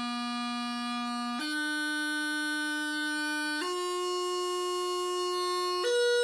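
Practice chanter playing a slow rising broken chord, low A, C sharp, E, high A, each note held for about two seconds: a cross-over (crossing sounds) exercise.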